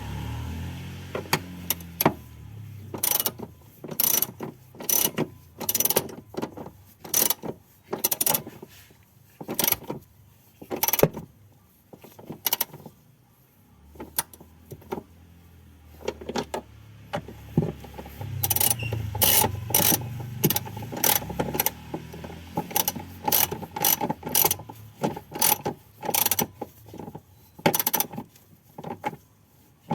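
Hand ratchet wrench clicking in short runs of strokes, working a bolt or nut, with a low rumble underneath at times.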